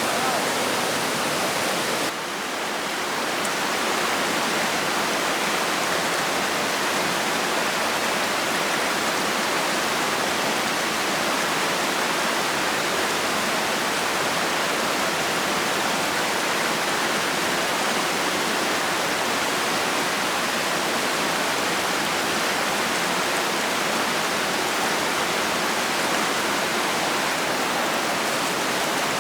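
Steady rushing water that dips briefly about two seconds in and then holds even.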